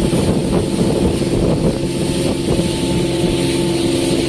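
Small fishing boat's engine running at a steady speed, a constant pitched hum with no change in revs.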